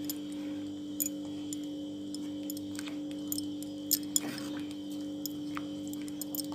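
Metal ladle stirring a thick vegetable curry in a clay pot, with scattered light clicks and scrapes of the ladle against the pot's rim and sides. A steady low hum runs underneath.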